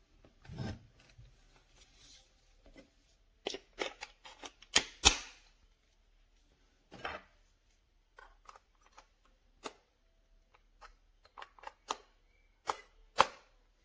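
Irregular sharp clicks and knocks of hard plastic parts being handled, like blender attachments being fitted and set down. They are loudest about five seconds in and again near the end.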